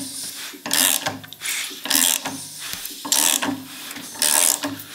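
Ratchet wrench clicking in repeated strokes, about four of them roughly a second apart, as the nut on a VW Beetle engine's generator pulley is tightened.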